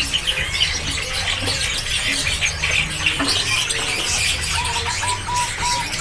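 Many caged songbirds chirping and squeaking all at once. Near the end comes a run of five short, evenly spaced notes.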